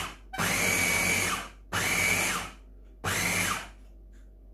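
Ninja electric food chopper grinding a thick mix of boiled chicken, egg and green chilli, run in short pulses. It runs three bursts of about a second or less, each with a whine that rises as the motor spins up and drops as it cuts off, after the end of an earlier burst.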